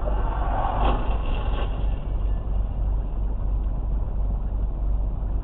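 Steady engine and road rumble inside a car, picked up by a dashcam's microphone. About half a second in, a louder noisy burst lasting about a second rises over the rumble, then fades.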